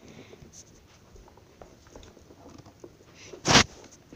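Faint shuffling and small taps of plush toys being moved about by hand, with one short, loud burst of noise about three and a half seconds in.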